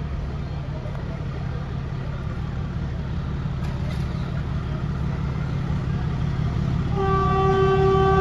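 Metre-gauge YDM diesel locomotive approaching, its engine a steady low rumble that grows gradually louder. About seven seconds in its horn sounds one held note.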